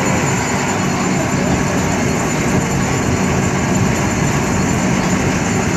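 Construction machinery's diesel engines running steadily during kingpost pile pressing, a loud even drone with no distinct hammer blows.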